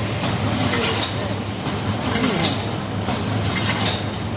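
Automatic wire mesh panel welding machine running: a steady low electrical hum under a continuous mechanical din, with sharp clanks repeating irregularly as it cycles through its welds.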